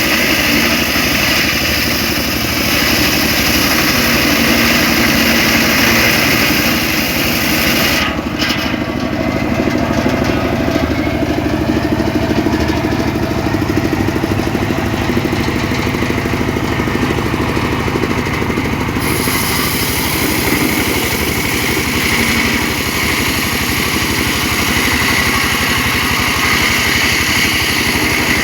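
Homemade engine-driven circular saw running steadily while ripping mahogany, the engine's rapid firing under a saw hiss. The higher hiss drops away about eight seconds in and comes back about eleven seconds later.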